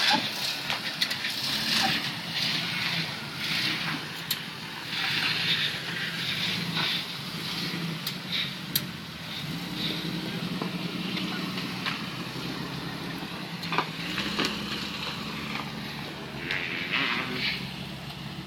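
Jeep Cherokee XJ's engine running at low speed as it crawls over rock ledges, its pitch rising and falling with the throttle, with a few sharp knocks of tyres and stones on rock.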